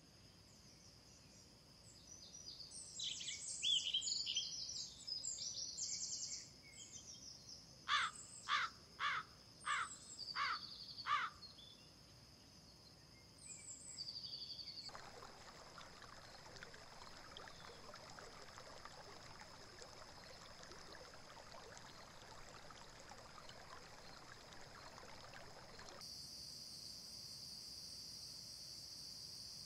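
Outdoor nature ambience: small birds chirping, then a bird giving six loud cawing calls about half a second apart, over a steady high-pitched insect trill. From about halfway through, a steady rushing hiss joins in, and the insect trill grows louder near the end.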